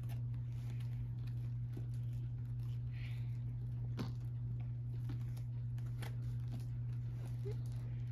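Plastic donut container being handled and pried at: scattered small clicks and crackles of plastic, with a sharper click about four seconds in, over a steady low hum.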